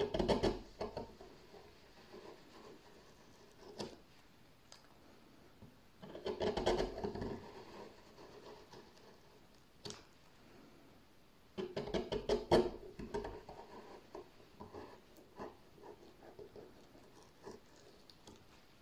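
Hand-forged swan neck gouge cutting shallow scoops in a wooden board: short scraping strokes of the blade through the wood, coming in three clusters, at the start, about six seconds in, and around twelve seconds, with lighter scrapes and ticks between.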